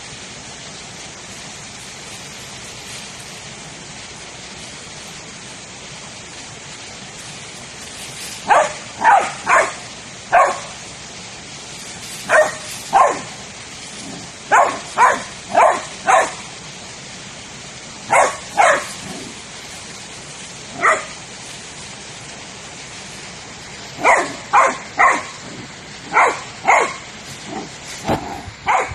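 A dog barking, about twenty barks in quick groups of two to four, starting about eight seconds in, over a steady hiss.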